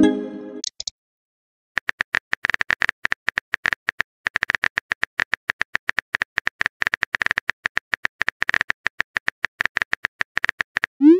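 Phone keyboard click sounds of a text message being typed: quick, uneven taps at about five a second. They begin after a short chiming message-sent sound at the start and a pause of about a second.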